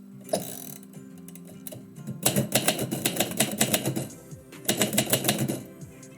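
Typewriter keys struck in two quick runs of typing, the first about two seconds long and the second about a second, after a single key strike near the start.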